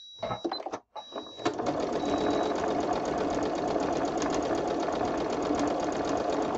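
Singer electric sewing machine stitching a seam through pinned cotton quilting fabric. It starts about a second and a half in, after a little handling noise, and then runs steadily at speed.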